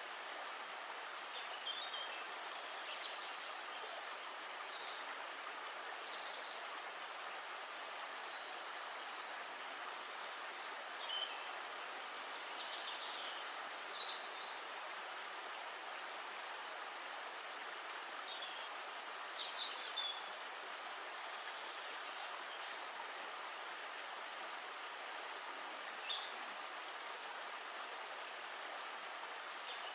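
River water flowing in a steady rush, with short bird chirps scattered over it now and then.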